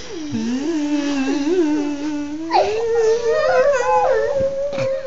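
A child's long, unbroken whining cry during tickling, wavering at first and rising in pitch about halfway through, then held. Other voices sound faintly over it.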